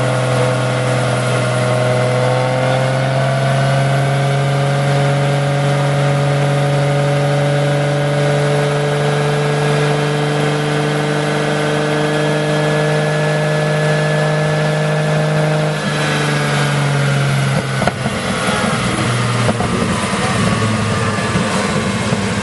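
Highly tuned Nissan 200SX drift car's engine running hard under load on a chassis dynamometer, its pitch climbing slowly and steadily through a power run. About 16 seconds in the throttle comes off and the revs fall away, followed by a sharp crack and rougher, uneven running.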